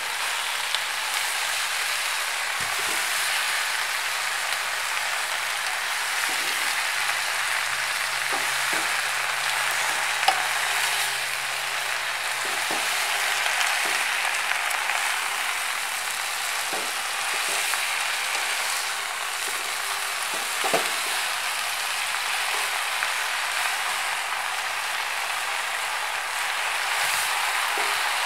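Pumpkin shoots and leaves sizzling in a hot wok, a steady hiss as a wooden spatula stirs and tosses them, with a few sharp clicks of the spatula against the pan.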